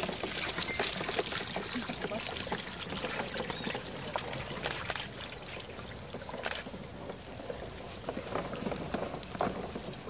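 Water and a load of hatchling turtles pouring out of a tipped metal tub onto wet mud: a rushing pour with many small clicks and knocks, strongest in the first few seconds and then thinning to a trickle and scattered clicks.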